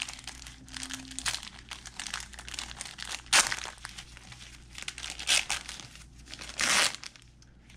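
Paper wrapper of a 1990-91 NBA Hoops trading-card pack being torn open and crinkled by gloved hands: a run of crackling with a few louder rips, the longest near the end.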